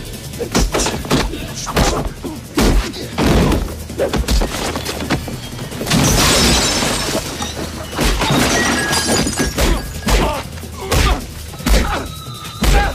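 Movie fight sound effects: a rapid series of punch and body-blow impacts over a dramatic music score. About six seconds in there is a crash with shattering that lasts a second or so.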